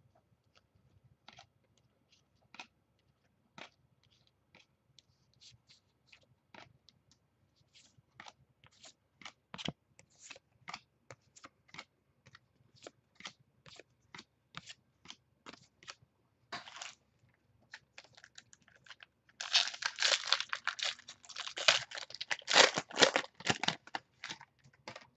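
Trading cards handled one by one, with a light click or slap about every half second. About 19 seconds in, a card pack wrapper is crinkled and torn open, the loudest part.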